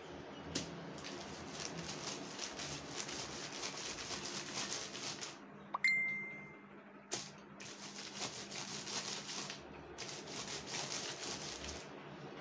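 Rustling and handling noises from food preparation at a table, in several stretches a few seconds long. About six seconds in comes one sharp clink that rings on briefly, followed a second later by a single click.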